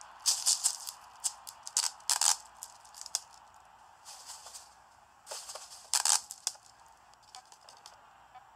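Short bursts of crinkling and rustling, like plastic sheeting being crumpled, several in quick succession in the first three seconds and again about five and six seconds in, over a faint steady hiss.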